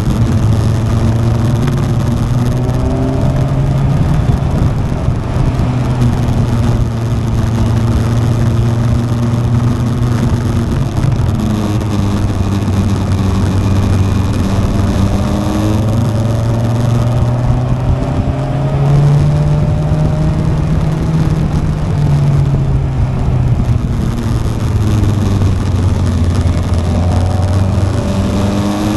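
Motorcycle engine heard from on board while riding. Its note climbs and drops again several times as the rider opens and closes the throttle through the bends, over steady wind and road noise.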